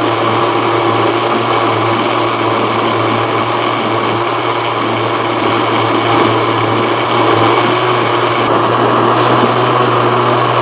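Electric blender running steadily, churning cream (malai) and a little water into butter.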